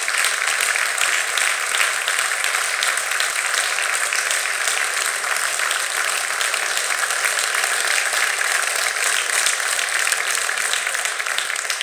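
Audience applause: many people in a hall clapping steadily, a dense, even patter that holds for the whole stretch.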